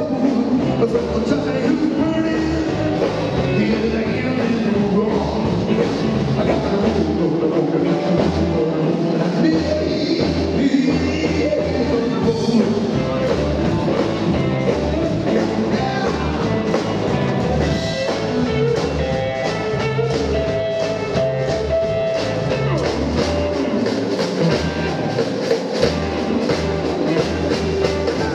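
A live rockabilly band playing rock 'n' roll, with double bass and drum kit keeping a steady beat.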